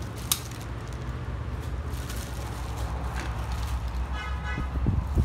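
Steady low background rumble with a single sharp click near the start, and a brief horn toot about four seconds in.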